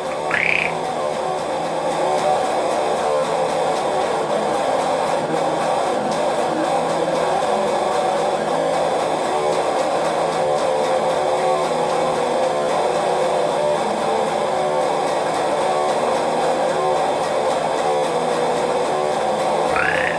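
Music: a steady, dense drone of sustained tones with guitar-like plucked strings.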